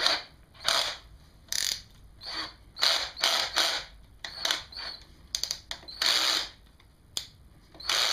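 Ratcheting hand tool driving self-tapping, self-sealing screws into a kayak track, clicking in repeated short strokes.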